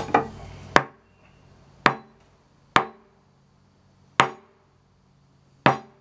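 A steel rod knocked down endwise on a workbench five times, at uneven intervals of about a second, each a sharp knock with a short ring. This is the rod being tapped to drive it further into a torch-heated fitting.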